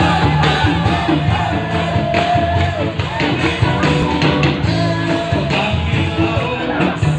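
Loud live rock music with a singer over bass and a steady drum beat, heard from within the crowd in front of the stage.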